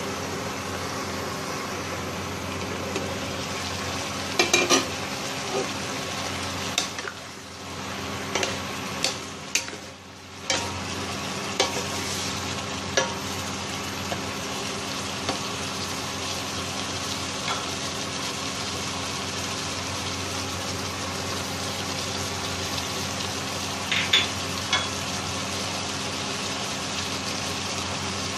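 Catfish and Thai eggplant sizzling steadily in a nonstick pan, with a spatula clacking and scraping against the pan now and then as the dish is stirred.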